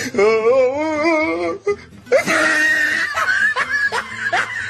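Comic laughing sound effect: a warbling, wobbling tone, then a wheezy breath and a string of short, rising squeaky laughs.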